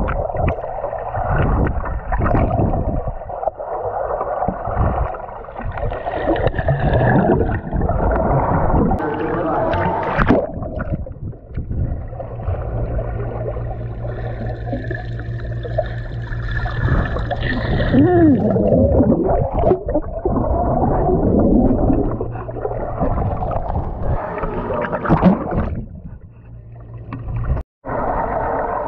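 Muffled gurgling and bubbling water heard through a submerged GoPro Hero 9 in a swimming pool. There is a steady low hum underneath, and the sound drops out briefly near the end.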